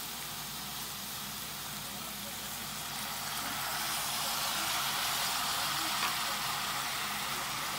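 Shredded pork, onion and peppers sizzling in a hot pot, a steady hiss that grows louder from about three seconds in as lemon juice is poured in.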